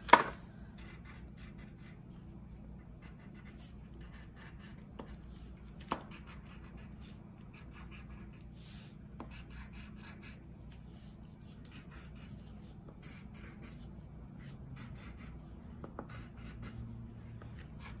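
Wax crayon scratching on paper in short, irregular strokes, with an occasional light tap and a faint steady low hum.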